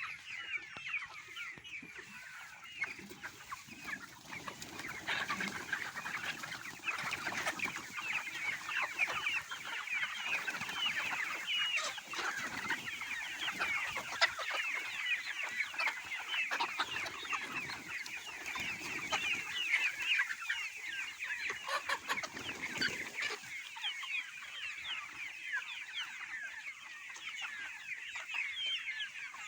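A flock of local chickens calling continuously: a dense chorus of many short, overlapping high calls mixed with lower clucking.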